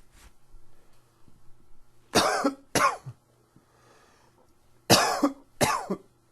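A man coughing from an allergy tickle in the throat: two coughs in quick succession, a faint breath, then another two coughs about three seconds after the first pair.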